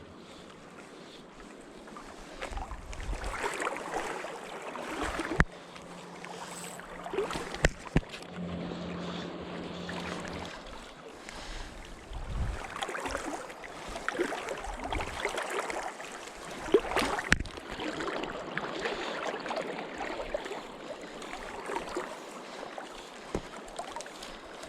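River water rushing and splashing, swelling and easing for a few seconds at a time, with wind on the microphone and a few sharp knocks.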